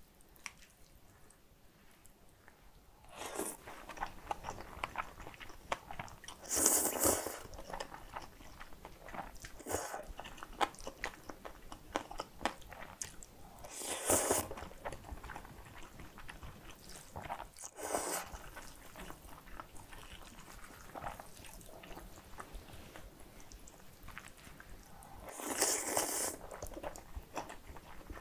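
Eating a bowl of kimchi bibim guksu, spicy cold noodles: starting about three seconds in, about six loud slurps of noodles come a few seconds apart, with wet chewing and small clicks in between.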